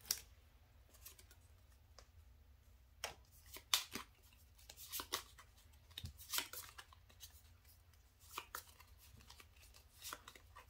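Pokémon trading cards being handled and flipped through one by one: faint, scattered card slides and flicks at irregular intervals.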